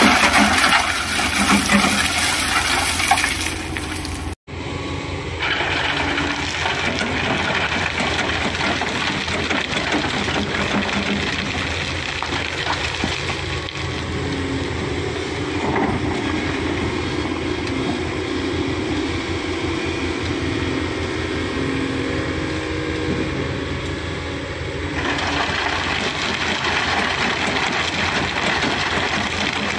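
An excavator's diesel engine runs steadily while its bucket pours sand and stones through a steel grate screen into a dump truck bed, the material rushing and rattling onto the metal. The sound cuts out for an instant about four seconds in.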